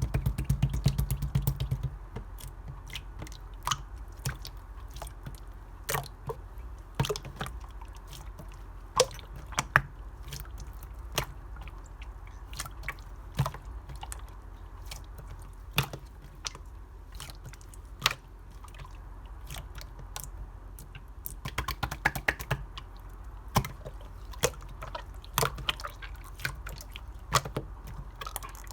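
Pink clear slime being pressed and poked by hand, making scattered sharp pops and squelchy clicks, with quick runs of pops at the very start and again about two thirds of the way through, over a steady low hum.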